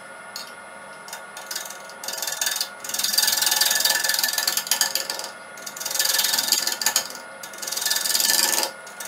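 Wood lathe spinning a natural-edge bowl blank while a 5/8-inch bowl gouge cuts it: the lathe runs with a steady hum, then from about two seconds in come three passes of the gouge, each a loud hissing cut of one to two seconds with fine rapid ticking, the interrupted cut across the uneven natural edge.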